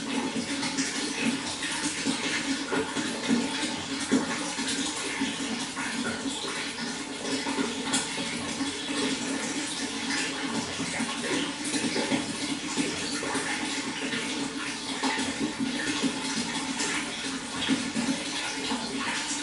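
Running water flowing steadily, with many small splashes and gurgles throughout.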